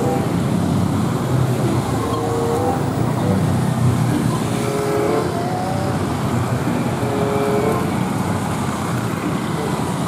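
Busy road traffic: a dense stream of motor scooters, cars and trucks, including a cement mixer truck, running past with a steady rumble of engines and tyres. Short pitched tones come and go over it.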